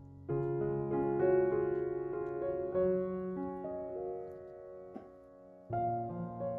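Background piano music: slow, gentle chords and melody notes that ring and fade, with a new phrase starting just after the beginning and again near the end.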